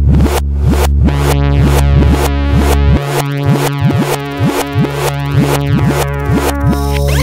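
Electronic music with a steady beat and sliding synth notes; the deepest bass cuts out about three seconds in.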